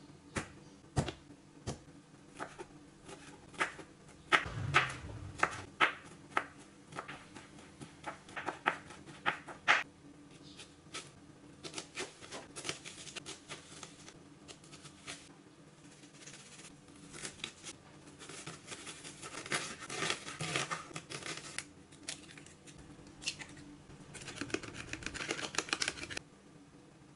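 Chef's knife chopping garlic on a wooden cutting board in sharp, irregular knocks, then cutting an onion with quicker, denser strokes. Near the end, eggs are beaten fast with a fork in a plastic tub, stopping abruptly.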